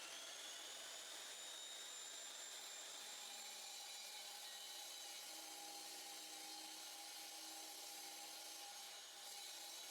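Power saw cutting a concrete slab: a high motor whine rises and levels off in the first second or two, over a steady gritty hiss.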